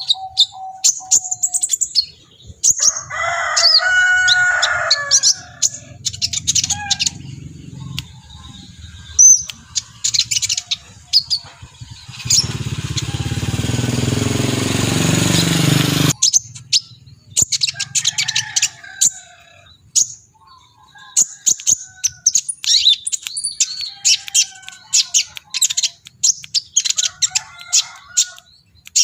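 Sunbird singing, a fast run of very high, sharp chirps and short trills, with a lower warbled phrase a few seconds in. About halfway through, a loud rushing noise covers the song for about four seconds.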